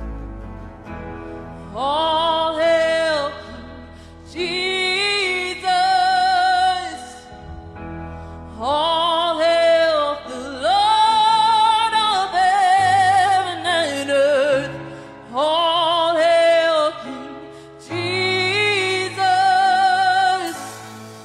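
Worship song: a singing voice holds long, wavering notes in phrases of a second or two, with short breaks between them, over sustained low accompaniment.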